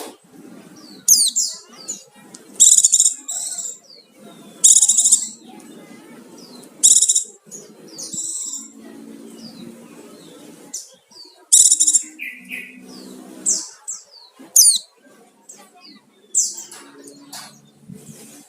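White-eye (pleci) singing: loud, high-pitched bursts of chirps and trills repeated every second or two, with mixed-in imitated phrases typical of a pleci in full song. A fainter low sound runs underneath.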